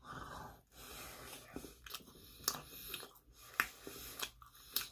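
A person biting into a slice of pizza and chewing it, with small crunches and clicks at irregular intervals.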